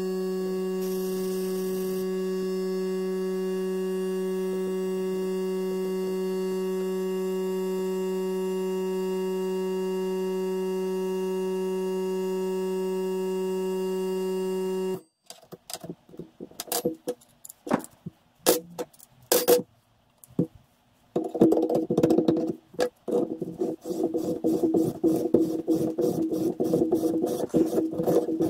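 A steady held electronic tone with overtones for about the first half, cutting off abruptly. Then scattered metallic clicks, and from about two-thirds in a fast continuous clatter: a reamer in a tap wrench being worked through the bronze bush of a classic Mini rear radius arm held in a vise, played sped up.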